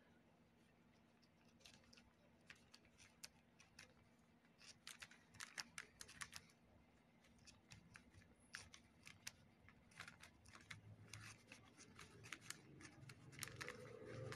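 Scissors snipping through a plastic courier mailer bag: faint, quick, sharp snips that come in clusters.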